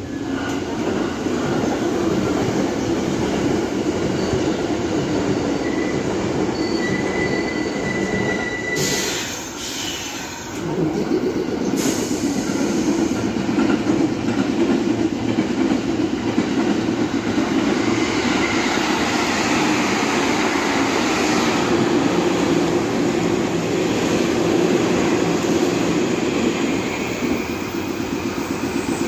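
Electric trains running on the tracks beside the platform: a steady rumble of wheels on rail that eases for a moment about ten seconds in, with a thin wheel squeal about six to eight seconds in.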